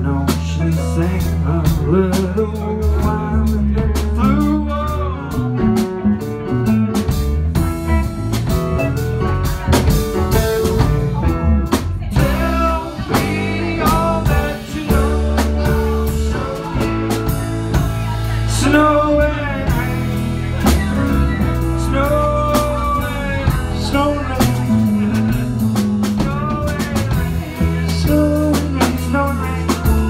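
Live band playing: electric guitars, bass, drum kit and keyboards. Singing comes in about halfway through.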